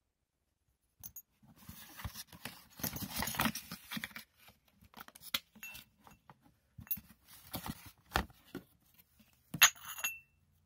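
Handling noise from unpacking a wax warmer: cardboard box and packaging rustling, with irregular knocks and a few sharp clinks of the hard warmer parts, two of which ring briefly.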